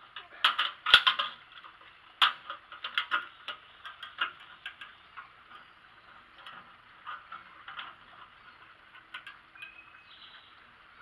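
Steel tape measure being pulled out and laid against the grill's sheet-metal body: a run of sharp clicks and ticks, thickest in the first few seconds, then sparser.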